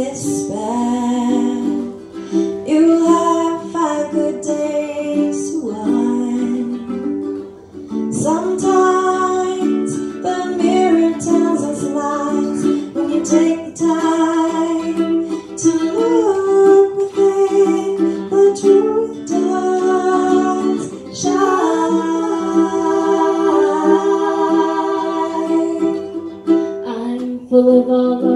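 Several women's voices singing in harmony in long held notes over a strummed acoustic stringed instrument, with a brief break about seven seconds in.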